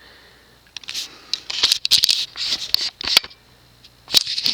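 Close handling noise: scratching and rustling with sharp clicks, mostly from about a second in to past three seconds, and again near the end.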